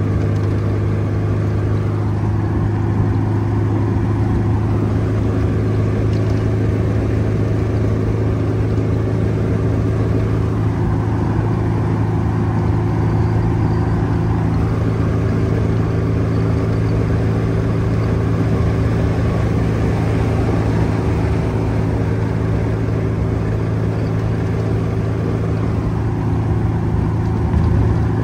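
El Lobo buggy cruising at about 60 mph on the freeway: its engine runs at one steady pitch under road noise, with a brief bump in loudness near the end.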